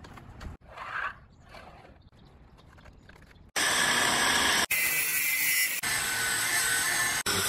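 Hercules angle grinder cutting through the corrugated steel wall of a shipping container. It comes in suddenly about halfway in with a loud, steady grinding whine that breaks off and picks up again a few times.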